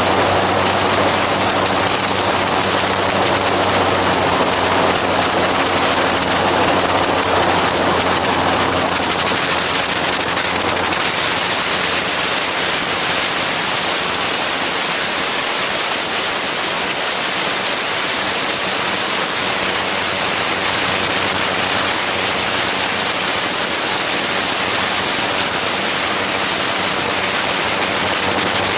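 Gyroplane in flight: a steady engine and propeller drone under heavy wind rush and buffeting on the microphone. About ten seconds in, the wind noise grows and mostly covers the engine.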